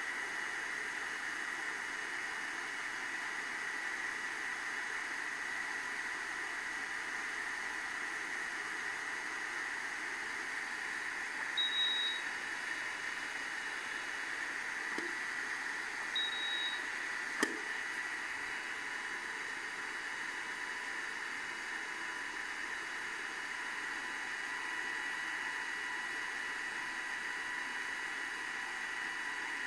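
Two short, high electronic beeps about four and a half seconds apart, over a steady hiss with a faint high whine, then a single sharp click.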